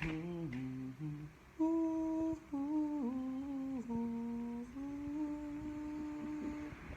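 A person humming a slow, wordless tune. Short notes come first, then longer held notes that step up and down in pitch, ending on one long held note.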